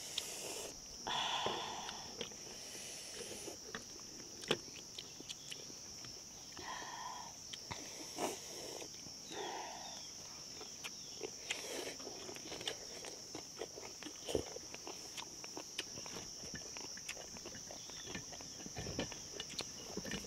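Steady high-pitched insect chorus, crickets or cicadas, with many scattered light clicks and knocks and a few short calls.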